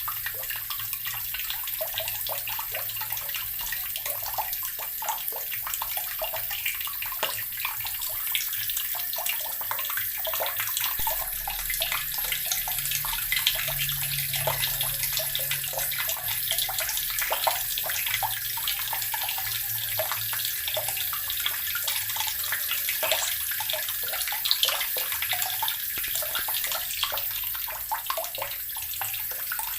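Water running steadily from a tap and splashing into a filling tub or basin, a continuous hiss of spatter.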